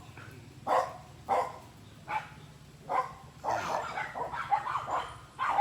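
Several dogs barking: single barks at first, then a busier run of overlapping barks over the last two seconds. They are worked up by someone passing on a motorbike.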